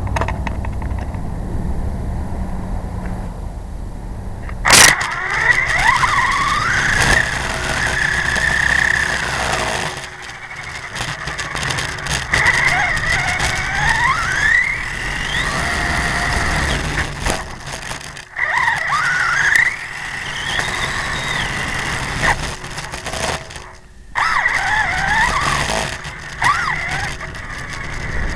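A remote-control model's motor whining, its pitch sweeping up and down again and again as it speeds up and slows. It runs in several spells with brief drops between them, after a low rumble and a sharp click at the start.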